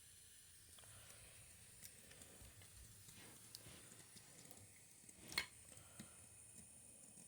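Near silence with faint scattered clicks and light knocks, and one sharper click about five seconds in, like small parts being handled.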